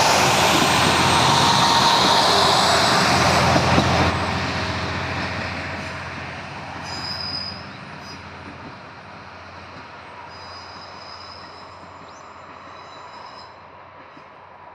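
Two-car Ibara Railway IRT355 diesel railcar passing close, loud for the first few seconds, then fading as it moves away. Thin, high wheel squeals sound about seven seconds in and again near the end.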